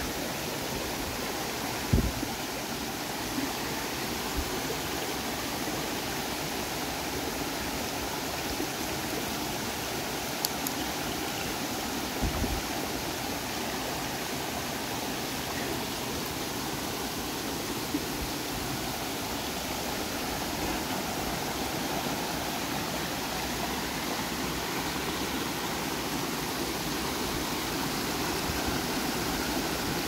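Soldier Creek's small cascades rushing and splashing steadily over boulders close by, a mountain creek in full flow. A few low thumps stand out, the loudest about two seconds in and another near the middle.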